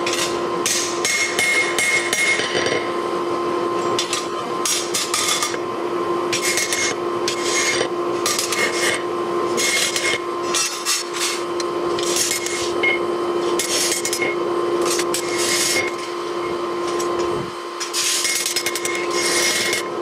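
Hand hammer striking a hot lawnmower blade on a steel anvil, forging it into a machete: runs of quick blows broken by short pauses. A steady hum sounds underneath.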